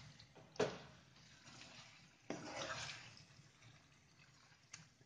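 Wooden spatula stirring chicken in a thick, wet tomato masala in a non-stick pan: a sharp knock against the pan about half a second in, a longer wet scrape and squelch around two to three seconds, and a small tap near the end.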